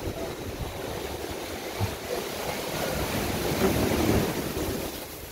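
Ocean surf washing in, with wind buffeting the microphone. The wash swells to its loudest about three and a half to four seconds in, then eases.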